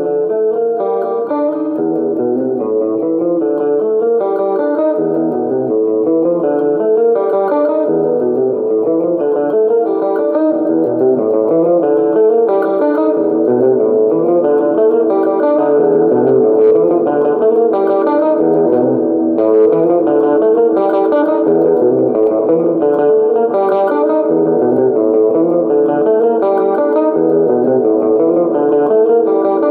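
Solo electric guitar picking a riff of quick single notes that repeats every few seconds.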